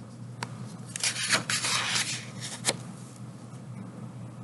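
A page of a thin picture book being turned by hand. The paper rustles for about a second and ends with a sharp flap.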